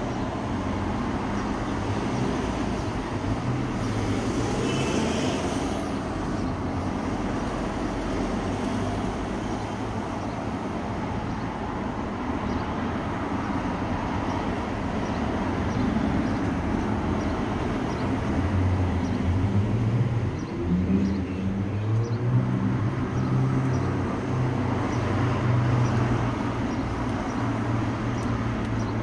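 Street traffic: a steady rumble of cars passing. In the second half a vehicle engine's low hum grows louder and rises in pitch about twenty seconds in, as it pulls away.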